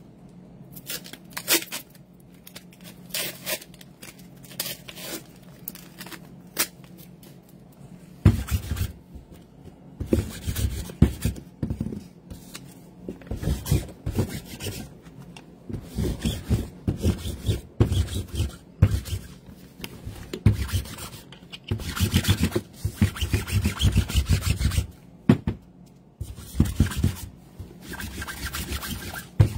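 Hands moving things about and handling objects on a cloth desk mat. Scattered clicks and taps for the first several seconds, then from about eight seconds in, dense rubbing and bumping close to the microphone.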